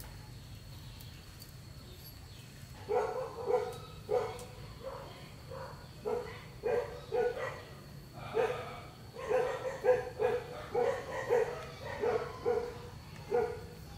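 A dog barking: a run of short barks that starts about three seconds in and keeps going at roughly two a second, irregularly spaced.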